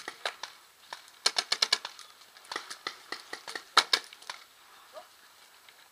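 Paintball markers firing: a rapid volley of sharp pops about a second in, then scattered shots, the loudest near the four-second mark, before the firing dies away.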